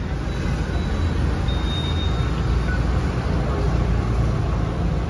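Steady street traffic noise: the low rumble of vehicle engines running and passing, with no break.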